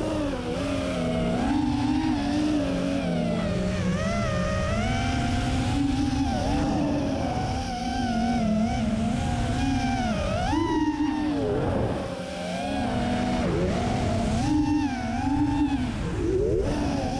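FPV racing quadcopter's brushless motors and propellers whining, heard close up from the camera on the drone; the pitch rises and falls constantly with the throttle, dipping briefly about twelve seconds in.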